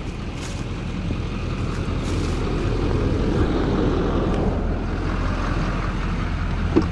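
Pickup truck's engine idling steadily, a low rumble that grows louder as the truck is approached.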